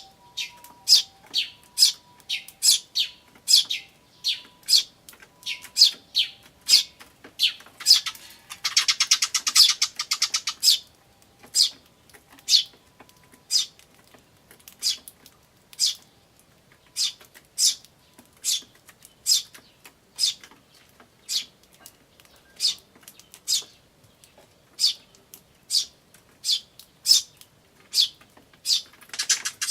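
Eurasian tree sparrows calling: a steady series of short, high chirps, about two a second, typical of a begging chick. Around a third of the way in comes a rapid buzzy chatter of about two seconds, like the adults' "jyujyujyu" call.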